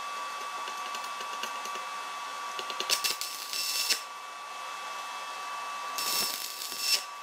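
Stick welding: the electrode strikes an arc on threaded rod twice, about 3 s and 6 s in, each a crackling, spitting burst about a second long, as for tack welds. A steady hum with a high tone runs underneath.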